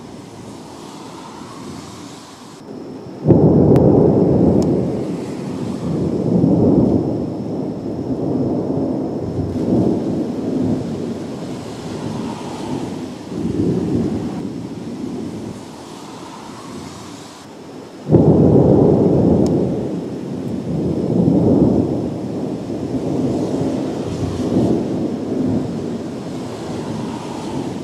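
Thunder from close lightning strikes: two sudden loud claps, about three seconds in and again about eighteen seconds in, each followed by a long rolling rumble that swells and fades in waves.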